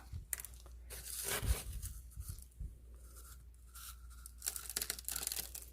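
Rustling and tearing as a small rooted succulent is pulled loose and handled, with roots and potting mix crackling. There are a few soft knocks.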